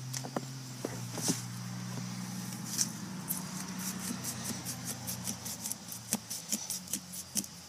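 A knife sawing into a pumpkin's rind: quick, short cutting strokes, several a second, starting about three seconds in, over a steady low hum that fades out near the end.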